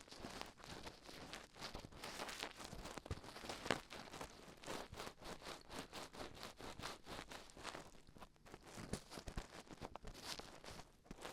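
Dried glue being peeled off the silicone ears of a 3Dio binaural microphone: dense, irregular crackling and small clicks with rustling, the sticky "peri peri" peeling sound.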